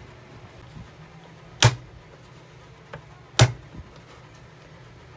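Kitchen knife chopping dried salted fish on a plastic cutting board: two sharp chops a little under two seconds apart, with a couple of lighter taps.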